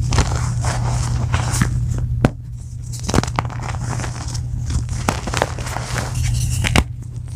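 Soft blocks of reformed gym chalk being crushed by hand, a dense crumbling crackle broken by frequent sharp cracks. A steady low hum runs underneath.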